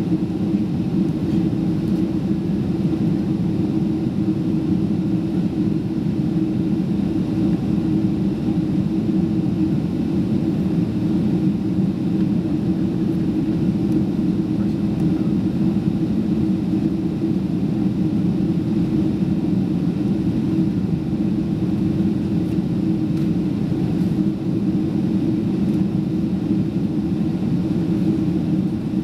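Steady in-flight cabin drone of a Boeing 767-300 with Rolls-Royce RB211 engines: engine and airflow noise holding an even low hum with no change.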